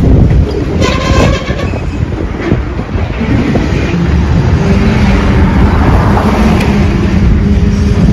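Freight train of open-top hopper cars rolling past at close range: a loud, steady rumble of steel wheels on rail, with a few clanks about a second in.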